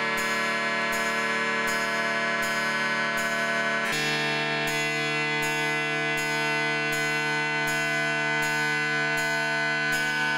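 Electronic synthesizer music from an Organelle and an OP-Z: held chord tones over a steady pulse of a little under two beats a second, with the chord changing about four seconds in.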